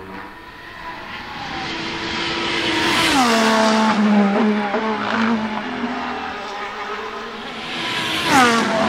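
Formula 1 car's 1.6-litre turbocharged V6 hybrid engine at speed, growing louder as it approaches and dropping steeply in pitch as it passes about three seconds in, then holding a lower note with small pitch steps. Near the end a second steep pitch drop comes as a car passes again.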